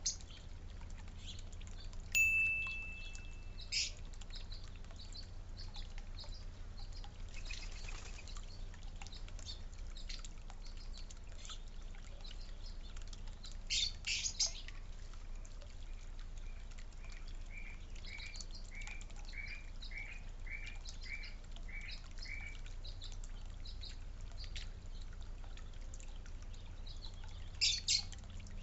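Backyard songbirds chirping, with one long clear whistled note early on and, later, a run of about ten evenly repeated whistled notes. A few louder sharp calls are heard near the middle and near the end, over a steady low hum.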